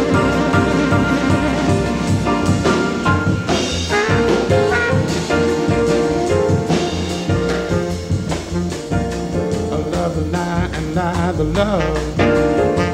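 Soul-jazz band playing over a steady bass-and-drum groove, with saxophone and trumpet horn lines over piano; a male singer comes back in near the end.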